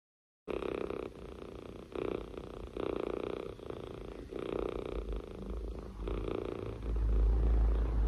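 Young tabby kitten purring softly, the purr swelling and fading about once a second, starting about half a second in. A low rumble joins near the end.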